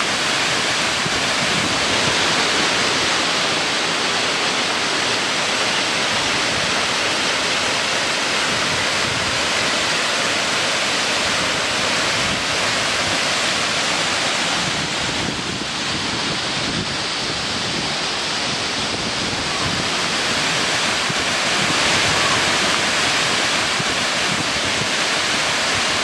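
Waterfall pouring down a rock face onto stones: a steady rush and splash of falling water, dipping slightly in loudness about halfway through.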